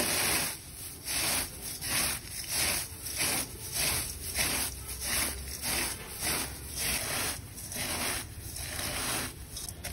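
Rhythmic scraping strokes, about two a second, steady throughout.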